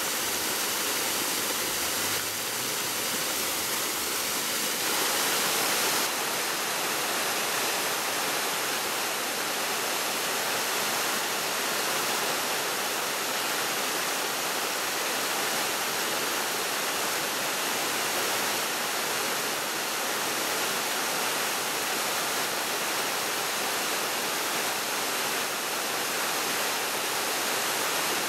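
Spring water pouring from a rock escarpment and splashing down stepped ledges onto stones: a steady rushing splash of small waterfalls, a little louder for a moment about five seconds in.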